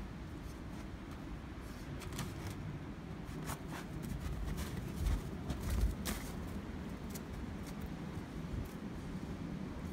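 Footsteps crunching in fresh snow, a handful of short crisp crunches scattered over a steady low rumble.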